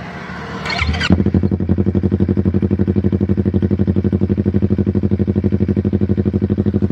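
Yamaha MT-25's parallel-twin engine idling through an F2Racing aftermarket exhaust, with a steady, even pulsing beat. The sound comes in sharply louder about a second in and then holds a constant pitch.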